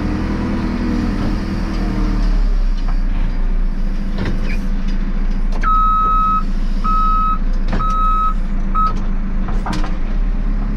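JCB 3CX backhoe loader's diesel engine running, its note shifting about two seconds in, with the reversing alarm beeping four times at one steady high pitch, the last beep cut short. A few sharp knocks come through over the engine.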